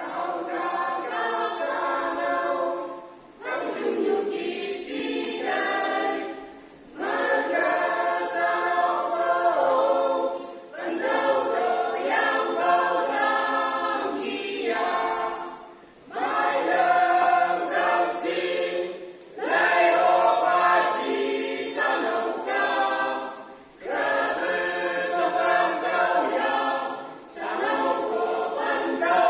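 A small mixed choir of boys and girls singing a Christian song unaccompanied into microphones, in phrases a few seconds long with brief breaks between lines.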